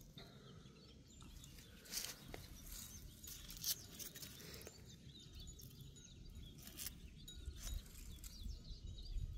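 Faint outdoor garden ambience: distant birds chirping, with a few scattered light clicks and rustles.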